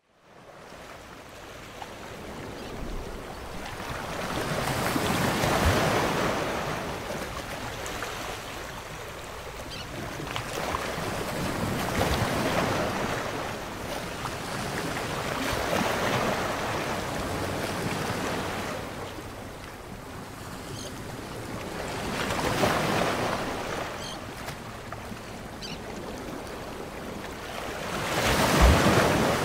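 Sea waves washing onto a shore, swelling and fading in slow surges about five times.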